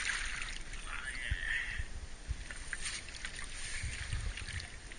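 Water splashing and dripping as a golden dorado, thrashing at the surface, is grabbed by hand beside a boat and lifted out of the river, with scattered small splashes and low rumbles.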